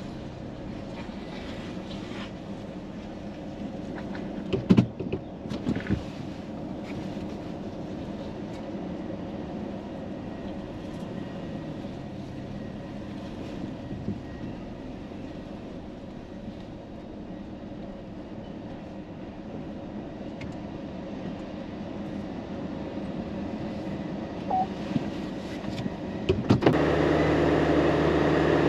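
A vehicle's cab noise as it drives slowly: a steady low rumble, with a few knocks and rattles about five seconds in. Near the end a louder engine hum with steady tones takes over.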